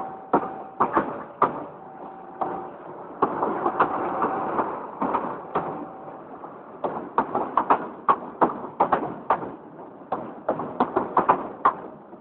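Passenger train's wheels clacking over rail joints in quick irregular clusters, with a rushing swell a few seconds in and a few short steady squealing tones early on.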